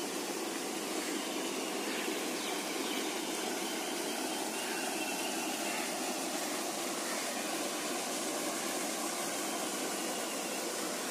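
Steady, even rushing outdoor background noise, with faint high wavering sounds here and there.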